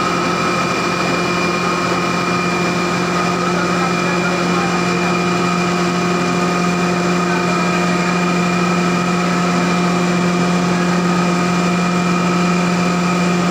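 Rice husk grinding machine and its cyclone air system running under power: a loud, steady machine hum with several fixed tones over an even rushing noise.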